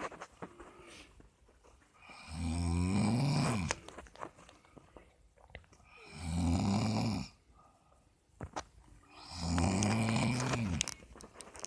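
A sleeping person snoring: three long snores about three and a half seconds apart, each lasting about a second and a half, with quieter breathing and small clicks in between.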